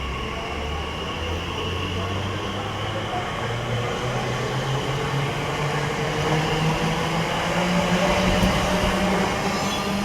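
A train pulling away and gathering speed, its motor note climbing steadily in pitch as the sound grows louder.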